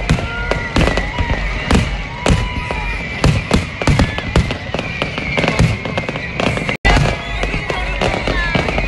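Fireworks going off in rapid, irregular succession: many sharp bangs and crackles overlapping, with short gliding whistle-like tones among them. The sound cuts out for an instant about seven seconds in.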